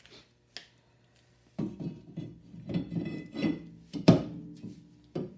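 Metal clanks and knocks from the rear brake drum and wheel being handled and fitted back onto the hub. A few light clicks come first, then a run of uneven clattering from about a second and a half in, with one sharp knock a little after four seconds that is the loudest.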